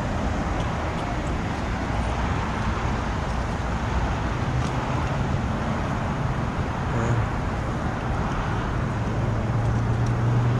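Steady road traffic noise with a low engine hum that swells and fades, plus a few faint ticks.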